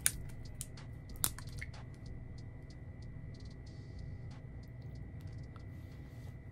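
Small fragrance-oil sample bottles being handled, with a couple of sharp clicks at the start and another a little over a second in, then lighter, irregular ticks and taps.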